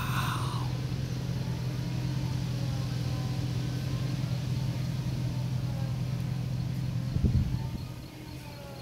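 A steady low engine hum, swelling briefly about seven seconds in and then dropping away. A short high-pitched call sounds right at the start.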